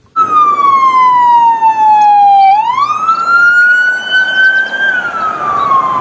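Police siren wailing: one tone slides slowly down, climbs back up about halfway through, then slides down again.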